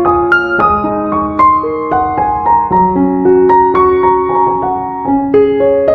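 Background piano music: a gentle melody of struck notes, a few a second, ringing over held chords.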